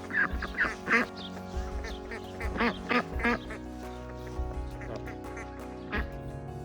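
Young ducks quacking: a run of short quacks through the first few seconds and one more near the end, over background music.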